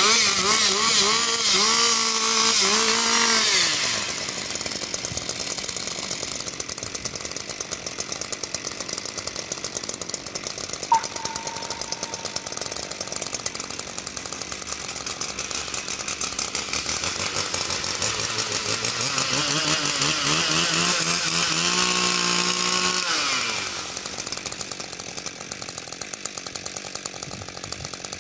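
Two-stroke chainsaw with a long bar running hard for the first few seconds, then dropping to a lower, rougher note as it cuts into a wooden plank. About two-thirds through, the engine pitch climbs steadily as it winds up again, then falls back.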